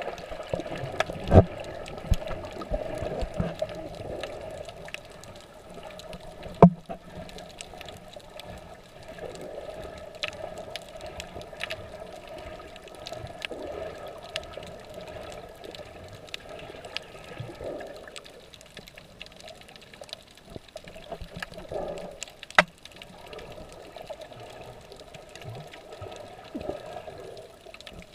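Underwater sound as picked up by a submerged camera: a steady muffled rush of water, with many faint scattered clicks and three sharp knocks, about a second in, about seven seconds in, and near the end.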